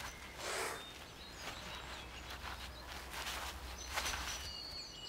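Soft scuffs and rustles from a grizzly bear cub moving against a tree trunk and through the undergrowth, the strongest about half a second in and another about four seconds in. Faint birdsong chirps behind.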